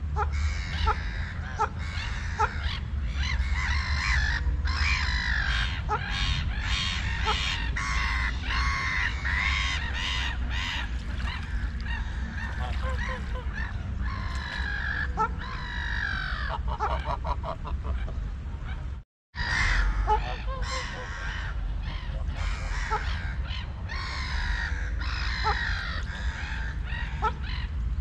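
A flock of waterfowl calls over and over, a busy mix of quacks and honks, over a steady low rumble. The sound cuts out completely for a moment about two-thirds of the way through.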